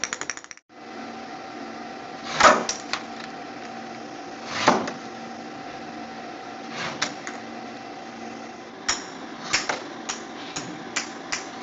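Steady hum of the robot arm and lab equipment, broken by a few loud knocks of a thrown ball striking the robot's plastic basket and the table, with a quicker run of lighter clicks near the end.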